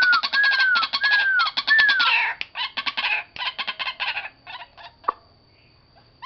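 Caged white-breasted waterhen calling: a fast, harsh, pulsing run of croaks with a few short falling notes in the first two seconds. The calling thins out and stops about five seconds in, followed by a single sharp click.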